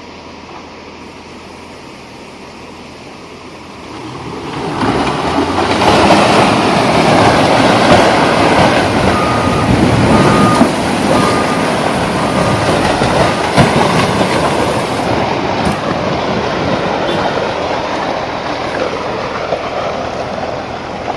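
A heavy vehicle passing close by: a loud rushing noise builds about four seconds in and slowly fades. A short run of evenly spaced beeps sounds in the middle.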